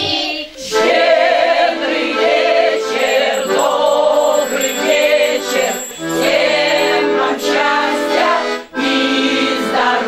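Group of women and children singing a folk carol together to a piano accordion accompaniment in held, steady notes, with a brief break about nine seconds in.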